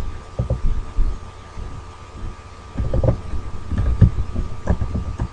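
Muffled, irregular knocks of typing on a computer keyboard and mouse clicks, picked up by a desk microphone. A steady faint electrical whine runs under them.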